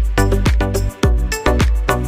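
Background music with a steady, fast beat and heavy bass.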